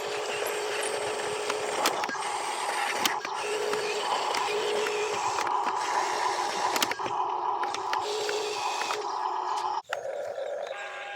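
Small electric motors and plastic gearboxes of an RC toy construction vehicle whining as it works, the pitch shifting as the motors change load, with a few clicks. The sound cuts out briefly near the end, then resumes more quietly.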